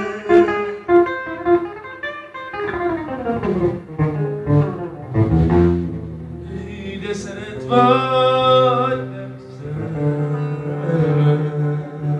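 A man singing a slow Hungarian Romani hallgató into a microphone, with an archtop electric guitar accompanying him. The voice slides downward through several notes a few seconds in and holds one long note about eight seconds in.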